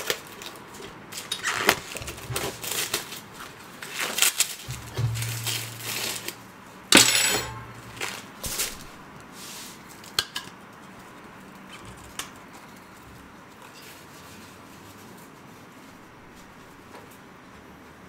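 Dishes and takeout containers being handled and set down on a table: clinks, knocks and rustles of plates, bowls and packaging, busiest over the first ten seconds with one loud clatter about seven seconds in, then quiet.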